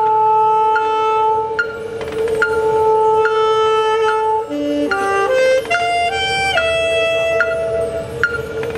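High school marching band playing: long held wind notes, with a slowly stepping melody over one steady low note, and short struck mallet-percussion notes ringing over the top.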